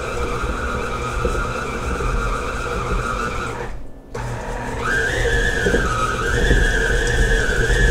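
KitchenAid stand mixer motor whining steadily as its flat beater works a bowl nearly overfull with thick oatmeal raisin cookie dough. The sound breaks off briefly about four seconds in, then the whine comes back slightly higher and wavers up and down as the load on the beater changes.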